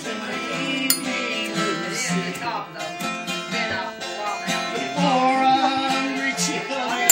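Acoustic guitar strummed and picked, playing a song accompaniment, with a short sharp click about a second in.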